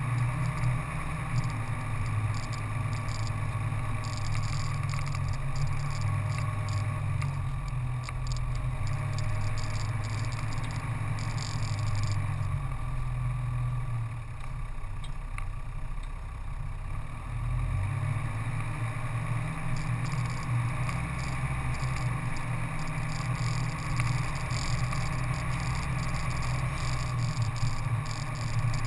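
A four-wheel-drive vehicle driving along a dirt track: a steady low rumble of engine and tyres, with wind noise on the microphone.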